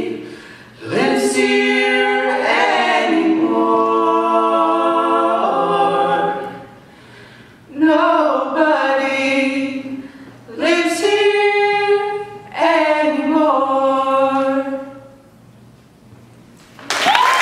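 Three voices, a man and two women, singing slow a cappella harmony in long held phrases with short pauses between: the closing lines of the song. Applause breaks out just before the end.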